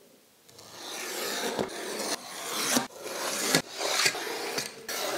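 Graphite pencil scratching across a plywood panel as it is drawn along a ruler, in a series of strokes a second or so long with brief breaks between them, starting about half a second in.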